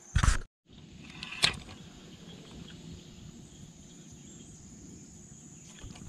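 Outdoor ambience with a steady, high-pitched insect buzz. A short loud noise comes right at the start and breaks off into a moment of dead silence, and a single sharp click follows about a second and a half in.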